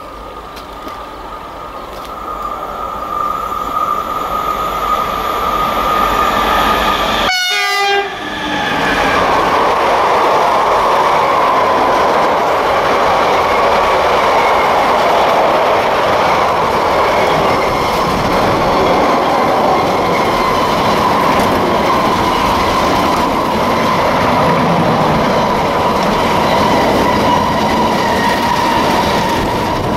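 Freight train of loaded car-carrier wagons, hauled by an electric locomotive, approaching and growing louder, then rolling past close by after about eight seconds with a steady loud rumble of wheels on rail and a thin ringing tone held over it.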